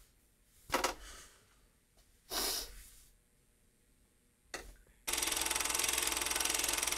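A man's short sobbing breaths and gasps, three of them a second or two apart. About five seconds in, a loud, steady hiss like static starts abruptly.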